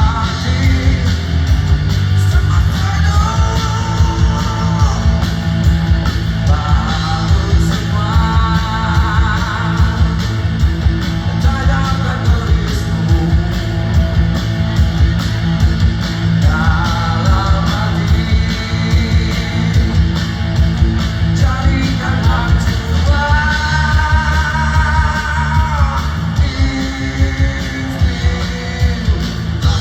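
Rock band with a lead singer: drums, bass and electric guitar keep a steady beat under sung phrases, loud throughout.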